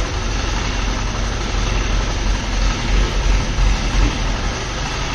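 Steady low machinery drone with a strong low hum, running evenly without change.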